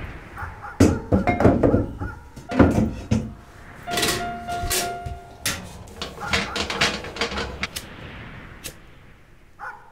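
Rummaging clatter: enamel mugs, a bottle and other small objects being shifted and knocked against a wooden shelf, a string of knocks with a few short ringing clinks about four to five seconds in, dying down near the end.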